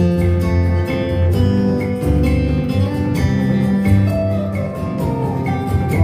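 Music with plucked acoustic guitar over a steady bass line, played through a stereo pair of IKEA Eneby (Vappeby) speakers.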